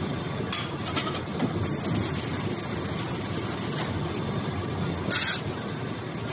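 Autobag automatic bagging machine running with a steady mechanical clatter, broken by short hisses, the loudest about five seconds in.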